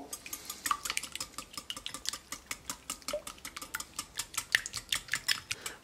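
Wire whisk beating eggs in a cut-glass bowl, its wires clicking against the glass in a fast, even run of several strokes a second.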